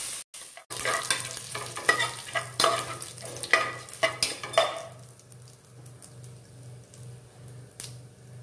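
Chopped shallots sizzling in hot oil in an aluminium pressure cooker while a metal spoon stirs them, knocking and scraping against the pot about a dozen times over the first few seconds. After that the sizzle carries on more quietly.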